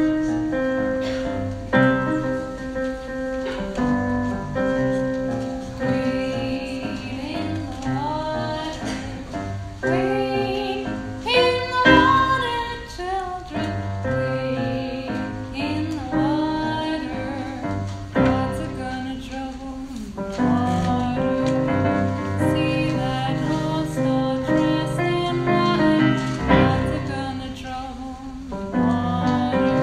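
A woman singing a gospel spiritual with piano accompaniment, holding notes with a wavering vibrato.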